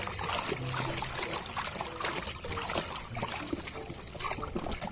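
Water trickling and splashing as a muddy toy vehicle is rinsed and scrubbed by hand, with irregular small splashes and knocks.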